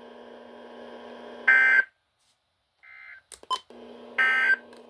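Two short screeching bursts of Emergency Alert System data tones, the end-of-message code that closes the warning, over a low steady hum from the broadcast receiver. Between the bursts the sound drops out for about a second, followed by a few clicks.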